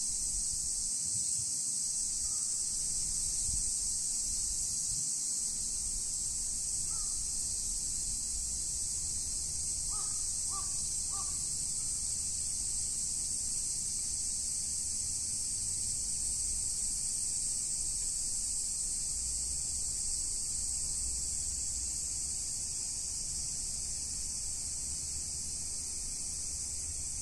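A crow cawing a few times, with three quick caws in a row about ten seconds in, over a steady high-pitched insect chorus and a low rumble.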